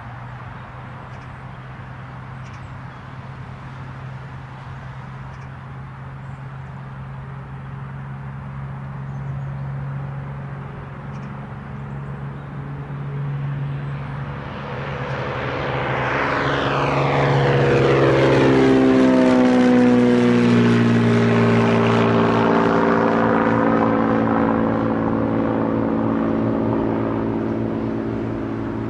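Propeller aircraft passing close by. The engine hum grows louder as it approaches, then its pitch drops sharply as it goes past, about two-thirds of the way in, and it stays fairly loud as it moves away.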